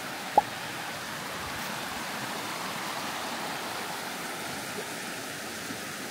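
Steady rushing of flowing water, like a stream, with one short sharp chirp about half a second in.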